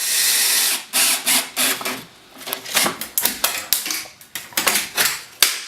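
Power drill driving screws through the window frame into the studs: one run of just under a second at the start, then a string of short bursts and sharp clicks.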